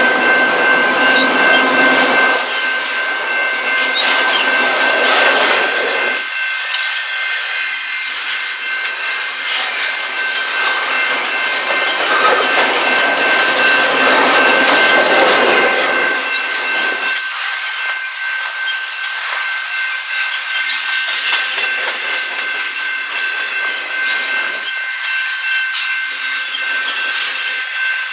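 Freight cars of a long, slow mixed freight train, autoracks and then intermodal container cars, rolling past. The wheels clatter on the rails, with a steady high-pitched squeal throughout.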